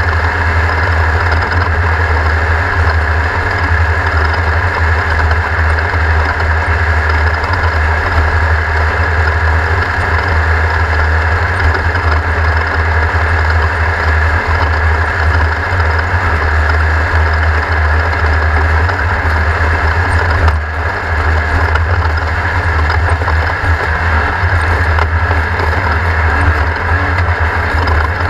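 Class 1600 off-road race car's air-cooled engine running steadily, heard from on board with a heavy low rumble and no clear revving. The sound dips briefly about two-thirds of the way through.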